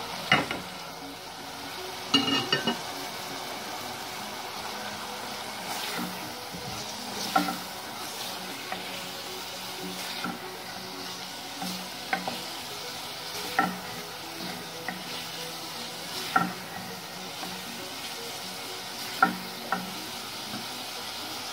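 Prawns, onion and freshly added ground spices frying with a steady sizzle in a metal saucepan, while a spatula stirs them and knocks against the pan every second or few.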